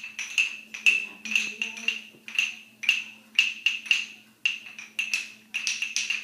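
Wooden rhythm sticks struck together in an uneven patter of sharp clacks, about three a second.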